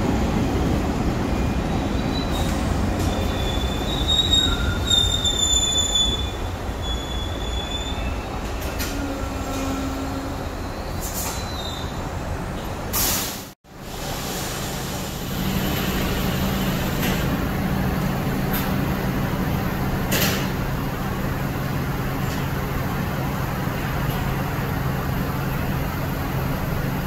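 R62 subway train rolling along a station platform, its wheels squealing with a high screech for several seconds. After a sudden cut about halfway through, a subway train stands with its doors open and gives off a steady low hum.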